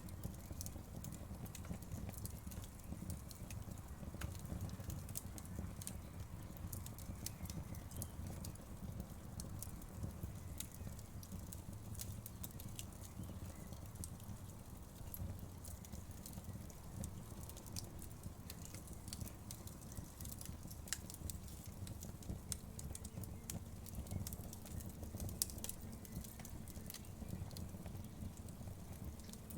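Wood fire crackling, with frequent sharp pops and clicks over a low steady rumble of the flames.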